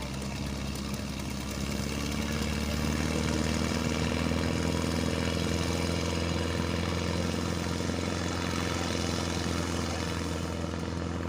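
An engine running steadily, its drone growing louder about two seconds in and then holding.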